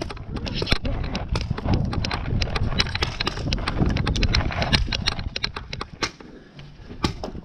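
Hurried footsteps on grass with the jostling and rattle of worn gear, a stream of uneven knocks and thumps over a low rumble; it eases off about six seconds in.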